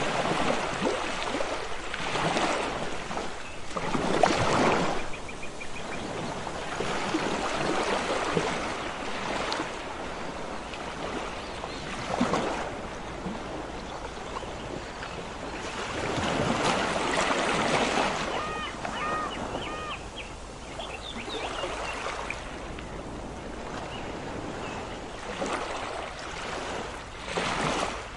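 Sea waves washing onto a beach, the rush of water swelling and falling back every several seconds.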